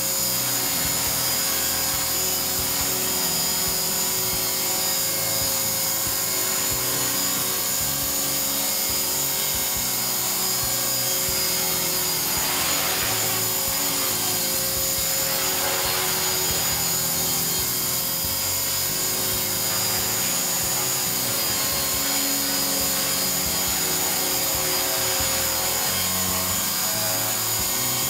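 Align T-Rex 450 Sport electric RC helicopter hovering: the steady high whine of its motor and drive gears with the spinning rotor blades. It shifts slightly in pitch about halfway through.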